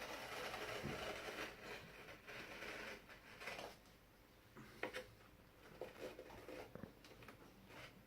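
Knife cutting the excess self-adhesive sticker film along the edge of a cabinet door. There is a faint scratchy slicing noise for about three seconds, then a few small clicks and rustles.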